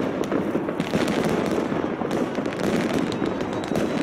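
Fireworks display with shells bursting overhead: a dense, continuous run of bangs and crackling.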